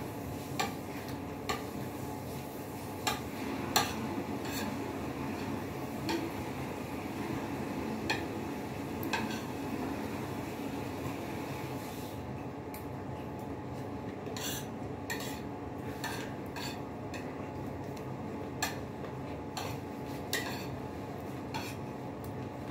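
Fork and knife clinking and scraping against a ceramic plate, short sharp clicks at irregular intervals, over a steady low background hum.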